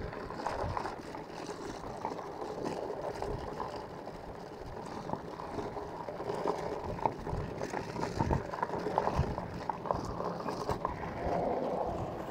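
Bicycle riding on a paved road: wind buffeting the microphone and tyre rumble, with many small clicks and rattles from the bike.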